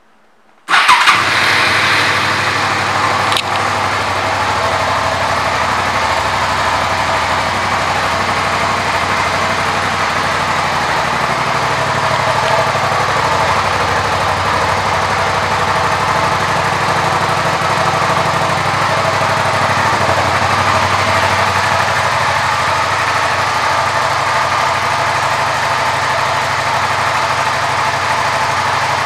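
2002 Suzuki SV650S's 645 cc V-twin engine starting about a second in with a brief rise in level, then idling steadily.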